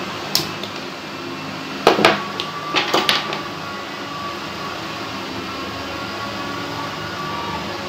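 Steel nail nippers snipping and cracking through a thick, overgrown toenail: a few sharp clicks, loudest about two seconds in, over a steady room hum.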